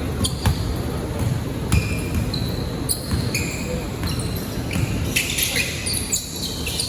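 Indoor basketball play: a ball bouncing on the court with many short, high sneaker squeaks on the floor throughout.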